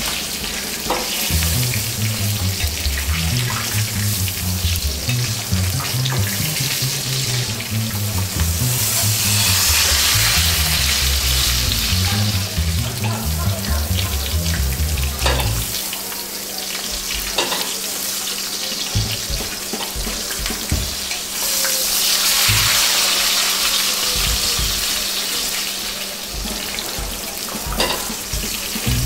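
Porterhouse steak sizzling in hot oil in a cast iron skillet. The sizzle swells louder twice as hot oil is spooned over the meat, with occasional sharp clicks of a metal spoon against the pan.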